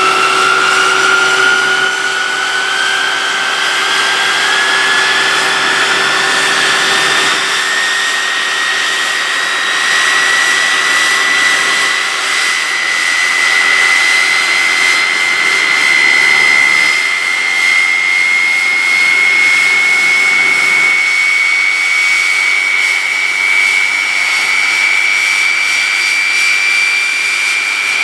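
Orenda OTF-3 industrial gas turbine, an aeroderivative of the Orenda Type 14 turbojet, spooling up on its test stand. A loud rushing sound carries a whine that climbs slowly in pitch through the first half and then nearly levels off.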